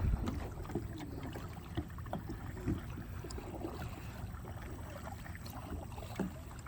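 A kayak on the water: small, scattered splashes and knocks over a steady low rumble of wind on the microphone.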